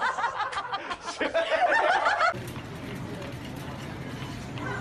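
Women laughing hard, cut off abruptly about two seconds in, followed by quieter steady supermarket background noise with a low hum.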